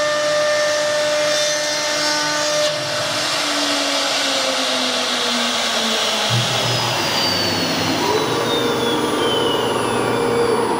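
Chinese 1325 CNC router with a 6 kW spindle running on MDF board: a whine over a steady rushing noise. The whine falls gradually in pitch through the middle, and a new steady tone rises in about eight seconds in.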